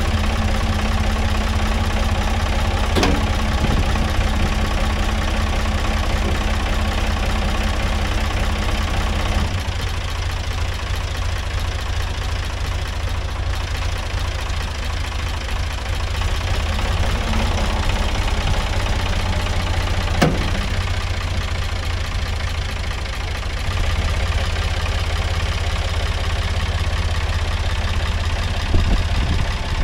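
Ford 555 backhoe loader's diesel engine running under hydraulic load while lifting a steel dump bed. Its level drops about a third of the way through and rises again near the end, with two sharp clanks.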